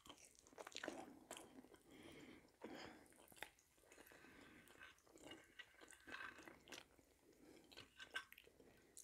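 Faint close-up chewing and mouth sounds of a person eating a mouthful of stuffed pepper and fried potatoes, with scattered small clicks of a fork against the plate.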